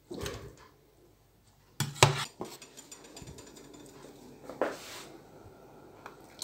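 Kitchen clatter of a metal pot and dishes: a few sharp knocks, the loudest about two seconds in, over a pot of water boiling faintly.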